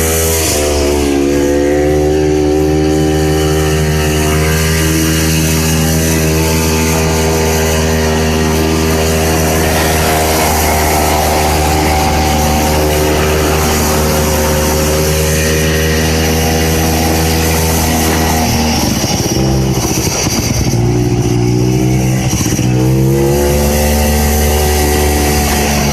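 Vintage Ski-Doo snowmobile's two-stroke engine running under steady throttle, then easing off and revving back up about two-thirds of the way through.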